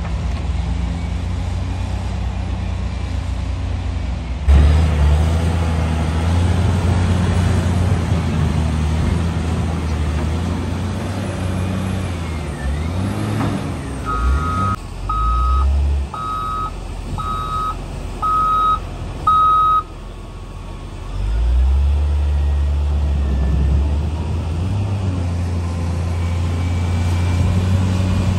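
A heavy truck's engine running with a deep, steady drone. Midway its reversing alarm beeps six times, about once a second.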